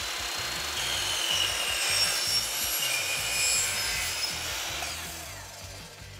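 Chop saw with a non-ferrous blade cutting through an aluminum top-rail tube: a loud cutting noise with high, steady whining tones from the blade biting the metal, dying away near the end.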